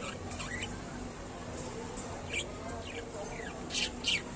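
Budgerigar chattering: short, sharp chirps with quick falling sweeps, a few about half a second in and a busier run over the last two seconds, over a faint steady hum.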